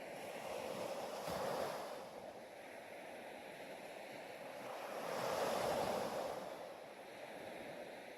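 Rushing, surf-like water noise that swells and ebbs twice, about four seconds apart.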